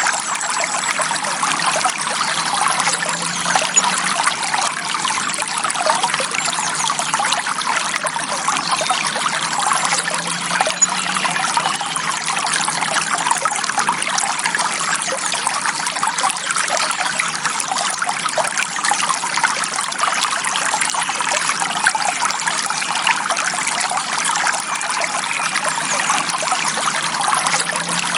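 Shallow forest stream trickling and babbling steadily over stones.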